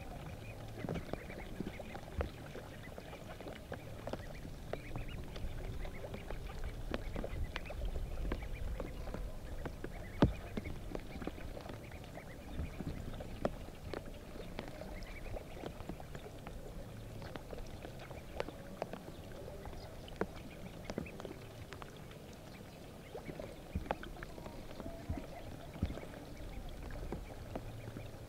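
Ducks calling softly amid water sloshing and splashing, with many small scattered clicks and taps.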